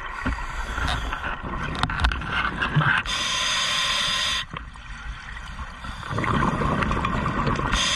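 Scuba diver breathing through a regulator underwater: an inhale hiss, then a burst of exhaled bubbles about three seconds in, then a second inhale and another exhaled bubble burst near the end.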